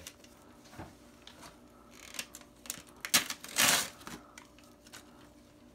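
Wrapping paper being torn off a gift box: a few soft rustles, then a sharp snap about three seconds in followed by a short rip of paper.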